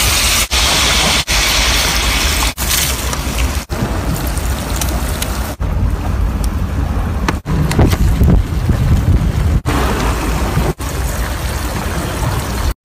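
Pork belly sizzling in a hot stone pot over an open wood fire: a dense steady hiss over a low rumble, broken by short gaps every second or so.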